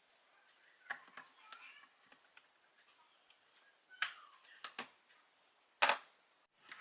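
A few sharp clicks and taps, the loudest about four and six seconds in, with faint small rattles between them.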